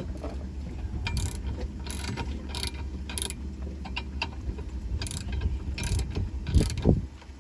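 Socket ratchet clicking as it tightens the bolts joining an anchor's shank to its fluke: two runs of short strokes, about one every two-thirds of a second, with a pause in the middle.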